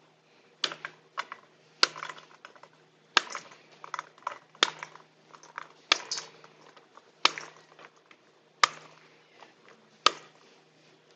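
A heavy metal spoon whacks the skin of a halved pomegranate held cut side down over a stainless steel bowl, about eight sharp strikes one every second and a half. After each strike come small clicks of seeds dropping into the bowl as they are knocked out of the fruit.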